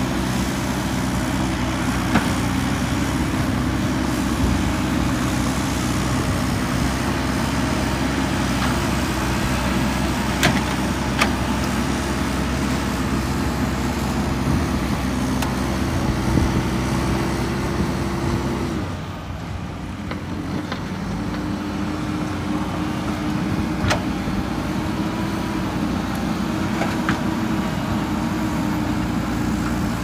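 Diesel engines of a JCB 3DX backhoe loader and a tracked excavator running steadily under digging load, with a few sharp knocks. The engine sound briefly drops away about two-thirds of the way through, then picks up again.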